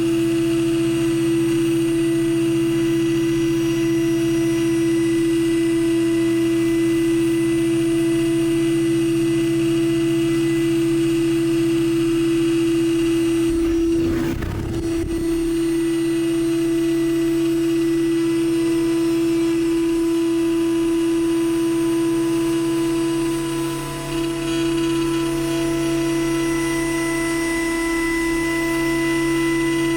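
CNC milling machine spindle running steadily with a strong constant whine and a lower hum, surface-milling aluminum with a PCD insert. About halfway through the lower hum breaks off for a couple of seconds with a brief rough, noisy patch, then resumes.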